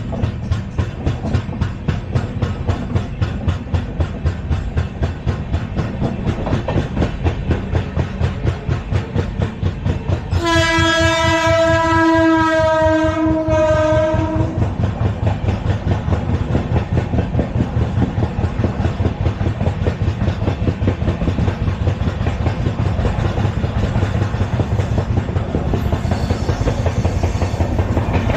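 LHB passenger coaches running at speed, their wheels making a rapid, regular clickety-clack over the rail joints. A train horn sounds one steady note for about four seconds near the middle.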